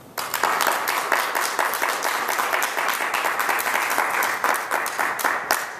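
Audience applauding, breaking out suddenly and thinning out near the end.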